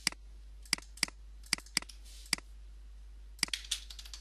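Computer mouse clicking: a string of sharp single clicks at irregular intervals, some in quick pairs.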